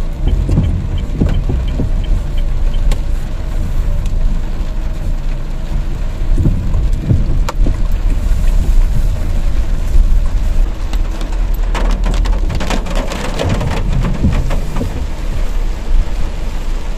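Rain pattering on a car's roof and windshield, heard from inside the cabin over the low hum of the Honda Brio hatchback. The scattered drop ticks grow thicker near the end.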